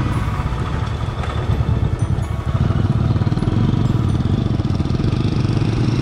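Motorcycle engine running steadily under way, heard from the riding bike, a little louder from about two seconds in.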